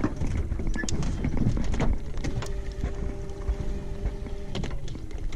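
Wind buffeting the microphone and scattered knocks on a metal boat, with a steady electric trolling-motor hum for a couple of seconds in the middle.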